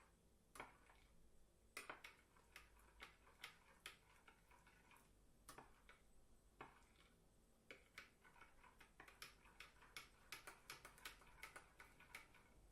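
A spoon clinking faintly against a glass while stirring honey into warm milk: light, irregular ticks that come faster in the second half.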